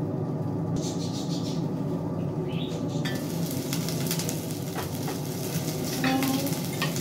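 Diced potatoes frying in a covered stainless steel pan over a steady low hum; about three seconds in, the lid comes off and the sizzle opens up. The Saladmaster steel lid then clinks a few times as it is handled and set down on the stove grate.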